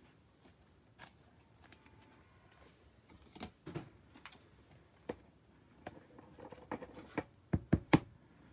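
Trading cards and a clear plastic card sleeve handled by hand on a table mat: soft rustling with scattered light clicks and taps, ending in a quick run of three sharper clicks.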